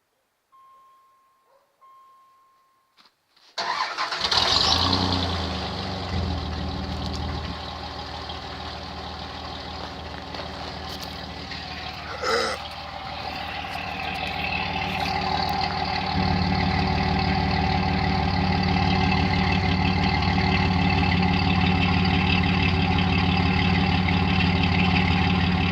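A faint steady beep for a couple of seconds, then the Dodge Dakota's 3.9-litre V6 starts about three and a half seconds in. It settles from a fast idle into a steady idle that grows louder about sixteen seconds in, heard through an exhaust with a single tailpipe.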